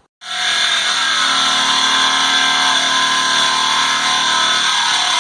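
Angle grinder cutting steel: it starts abruptly and runs loud and steady, a high whine over a hissing rasp.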